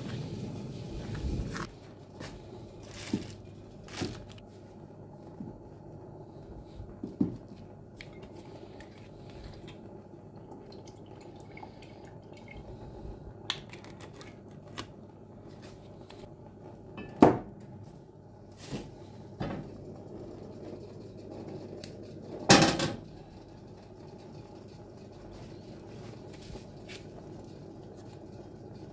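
Kitchen handling noises: scattered clicks and knocks of a cupboard, a bottle and pots and utensils, the two loudest about 17 and 22 seconds in, over a steady low hum.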